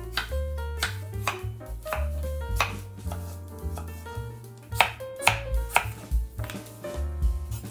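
Chef's knife slicing a red bell pepper into strips on a wooden cutting board, each cut ending in a sharp knock of the blade on the wood, about two a second. Background music with a bass line plays throughout.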